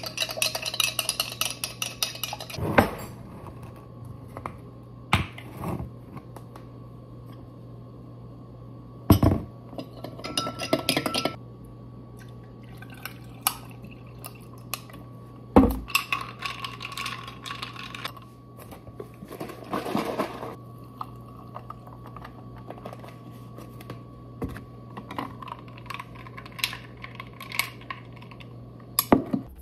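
Dishes and cutlery clattering, with sharp knocks scattered throughout and a few short bursts of running water over a steady low hum.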